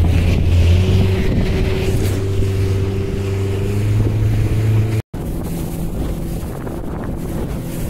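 Motorboat engine running steadily, with water and wind noise on the microphone. The engine note rises a little about four seconds in. Just after five seconds it breaks off abruptly at an edit cut, and the hum carries on after it.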